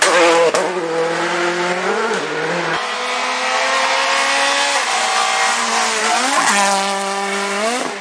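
Rally car engines at full throttle passing at close range. The engine note climbs and then drops sharply at several gear changes, with tyre noise over it.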